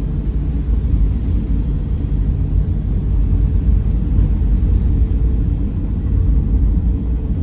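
Van driving along a road: a steady low rumble of engine and road noise.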